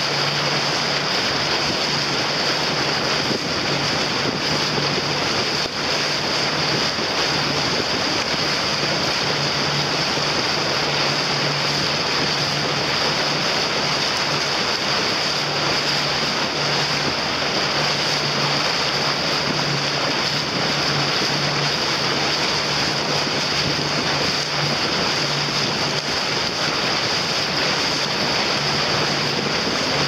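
Steady rush of wind on the microphone and moving water, with a low steady hum underneath.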